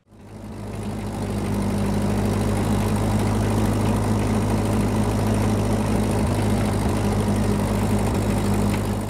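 Tractor engine running steadily at a constant speed. It fades in at the start and drops away near the end.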